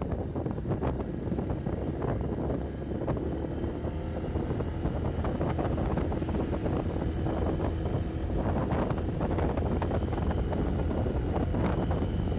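Wind buffeting the microphone on a moving motorbike, over the bike's engine running steadily at road speed.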